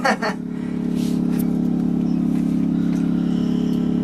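An engine running steadily: a constant low hum with a fast, even pulse.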